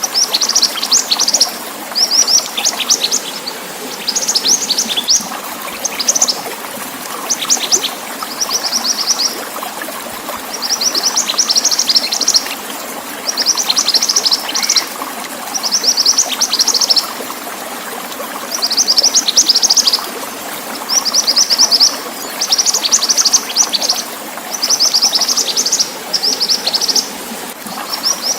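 Mantenan songbird singing in short bursts of rapid, high chirping notes that repeat every second or two with brief pauses, over a steady background of running water.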